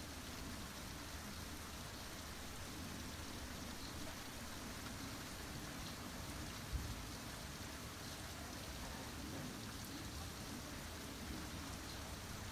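Steady rain falling, an even hiss throughout, with a single brief low thump a little past halfway.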